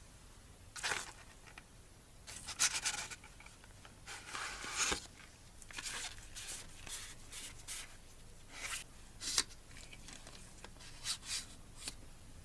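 Unboxing handling noise: cardboard packaging sliding and paper leaflets rustling under gloved hands, in short irregular scrapes and rustles with a few sharp clicks, the longest rustle a little before halfway.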